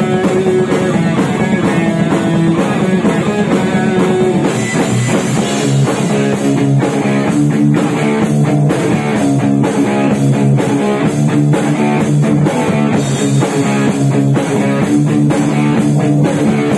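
A live thrash metal band playing instrumentally: electric guitar, electric bass and drum kit together, with no vocals. About four and a half seconds in the section changes and the drum hits come through more sharply and regularly.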